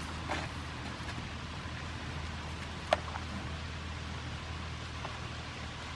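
Outdoor background noise with a steady low hum, and a single sharp click about three seconds in.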